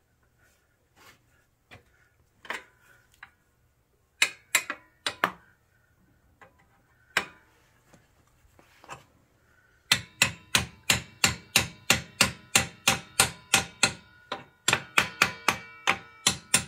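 Hammer striking metal at a motorcycle's rear wheel assembly: a few scattered taps, then steady rapid hammering, about three blows a second, with a brief pause, each blow leaving a faint metallic ring.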